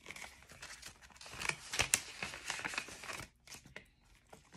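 Paper banknotes and paper cash envelopes rustling and crinkling as dollar bills are handled and slipped into an envelope, with a busy run of crackles loudest about two seconds in and only a few light rustles in the last second or so.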